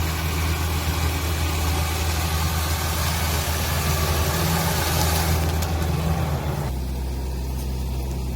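Engine of a rice combine harvester running steadily, with a broad mechanical clatter over it. About six and a half seconds in the clatter drops away and the engine note changes.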